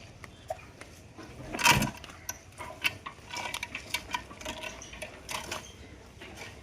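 Irregular clicking and knocking, like work going on by hand, with one louder bang about a second and a half in.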